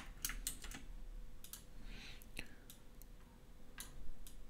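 Scattered, irregular light clicks of a computer mouse, about ten of them.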